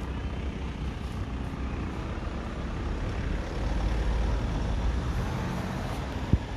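Low, fluctuating rumble of wind on the microphone, swelling about halfway through, with one sharp click near the end.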